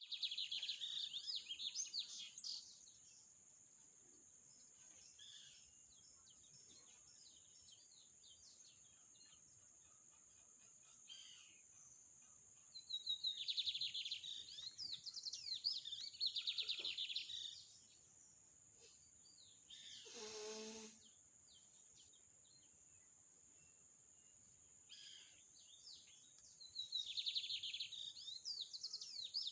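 Bird chicks chirping fast and high in loud bouts of a few seconds each, three times, with scattered softer chirps between.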